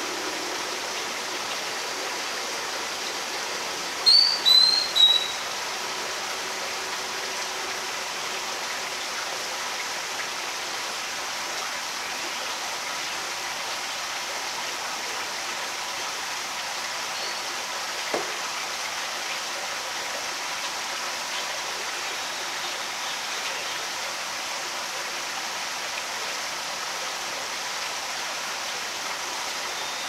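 Steady outdoor hiss of rushing noise, with a bird giving three short, high chirps about four seconds in, the loudest sound, and one faint click later on.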